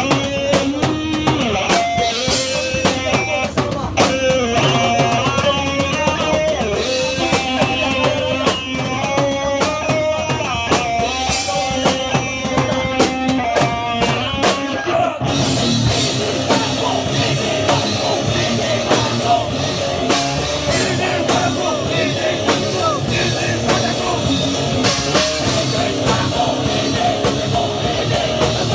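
A hardcore band playing live, with drum kit and electric guitars. A stepping melodic guitar line runs over the drums through the first half, and about halfway through the band breaks into a denser, fuller wall of sound.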